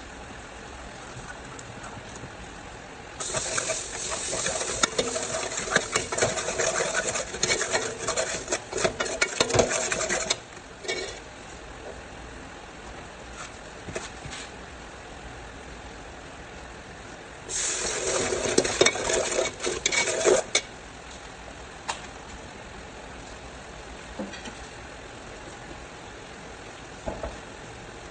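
Metal ladle stirring and scraping against the side and bottom of an aluminium pot, in two spells of about seven and three seconds, over the steady sizzle of food frying in bubbling oil.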